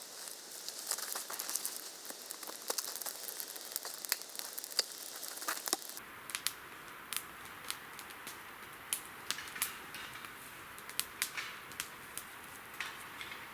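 Campfire crackling, with irregular sharp snaps and pops from the burning wood.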